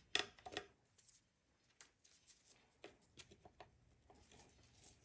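Faint handling noises of hand tools working on the engine: two short rustling scrapes in the first second, then a few scattered light clicks over near silence.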